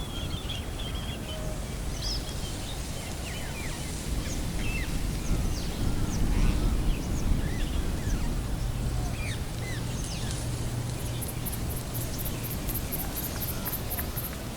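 Birds chirping and calling, many short calls over a low rumble that swells in the middle. Near the end a high, even ticking about four times a second joins in.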